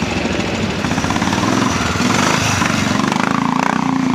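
Classic Norton trials motorcycle's engine running with a rapid, even beat as it is ridden through a trials section.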